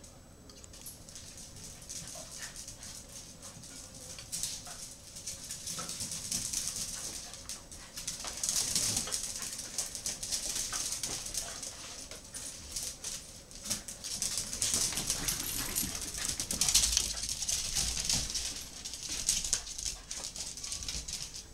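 Two dachshunds scampering and scrabbling about on a hard floor, their claws clicking and scratching in quick irregular bursts, with some whimpering.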